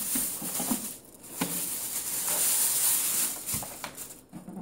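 Clear plastic bag crinkling and rustling as a plastic mop bucket is lifted out of a cardboard box and pulled free of the wrapping, with a few light knocks. The rustling dies away near the end.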